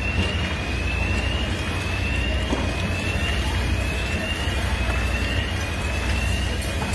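A steady low rumble, with a faint electronic alarm tone that rises slowly and resets about every one and a half seconds, over and over.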